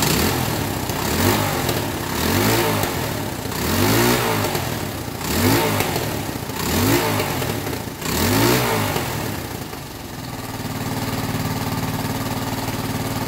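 Restored Linhai ATV engine being revved in six quick throttle blips about a second and a half apart, each rising and falling back. It then settles into a steady idle for the last few seconds.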